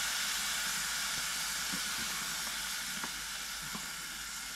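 Chili sizzling and steaming in a hot pot on a portable butane stove: a steady hiss that slowly fades.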